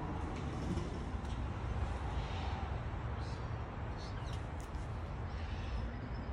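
Steady outdoor background noise: a low rumble with a few faint, short high chirps and ticks scattered through it.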